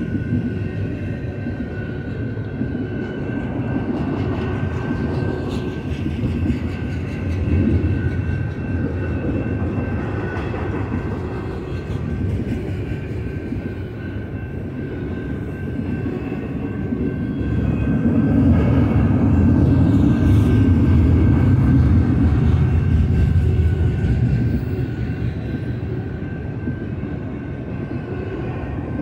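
Double-stack intermodal container train's well cars rolling past, a steady rumble of steel wheels on rail that grows louder for several seconds about two-thirds of the way through, with a thin steady high-pitched ring over it.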